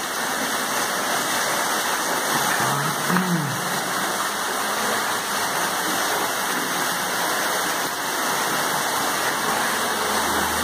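Steady rush of falling water from the grotto's small man-made waterfalls.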